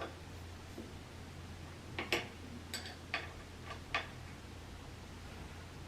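Six or seven sharp, irregularly spaced clicks and light knocks, one right at the start and the rest bunched about two to four seconds in, over a steady low hum.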